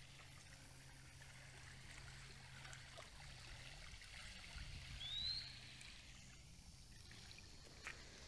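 Faint, gentle lapping of small waves over a rocky shoreline, with a single short rising chirp about five seconds in.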